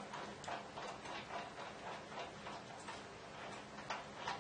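Light, irregular metallic clicks and ticks of steel screws being handled and started by hand into threaded holes in a lathe bed, with a couple of sharper clicks near the end.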